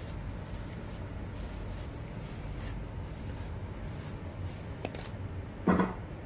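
Sugar spooned into a plastic blender jar over cut cucumber and apple: faint soft sprinkling and scraping strokes, with a brief thump near the end.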